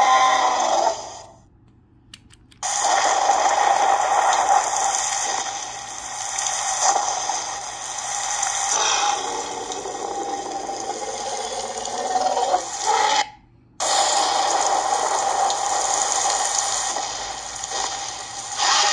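Electronic sound effects from the toy outhouse playset's built-in sound unit, mostly a recorded rushing-water toilet flush. The clips are broken by two short silences, about a second in and again about thirteen seconds in.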